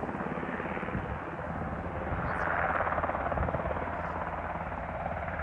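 Firefighting helicopter flying off with a full water bucket, its rotor chop steady and swelling a little about halfway through.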